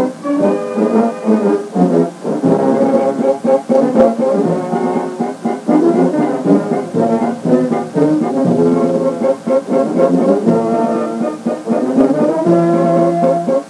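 A filarmônica wind band plays brass-led music, heard from an old 1980s–90s cassette recording. A low chord is held near the end.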